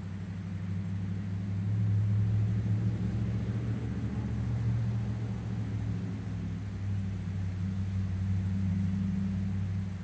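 Low, steady engine hum that grows louder over the first two seconds, holds, and drops off suddenly at the end.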